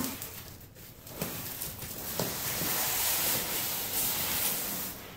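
A heavy cardboard carton scraping and rustling on a concrete floor as it is tipped and walked along, a rough hiss lasting a few seconds with a couple of knocks early on.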